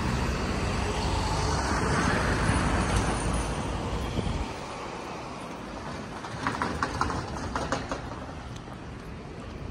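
Low rumble of road traffic at a level crossing that stops abruptly about four and a half seconds in, leaving quieter street ambience with a short cluster of sharp clicks near the end.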